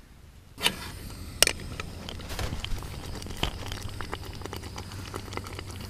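Ravioli in tomato sauce bubbling and spitting in a small pan on a camping stove, a continuous crackle with sharp pops scattered through it over a low steady hum. It starts abruptly about half a second in.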